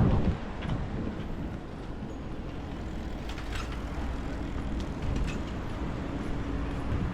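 Low, steady rumble of passing vehicles, after a loud rush of wind on the microphone that cuts off just after the start. A few faint clicks and a faint hum sit over the rumble in the second half.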